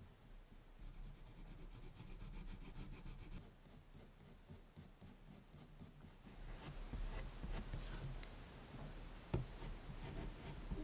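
Colored pencils scratching on drawing paper in quick, short strokes, faint, with one sharper tap of the pencil about nine seconds in.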